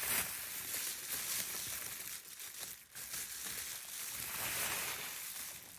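Wrapping crinkling and rustling as a small packaged item is opened by hand.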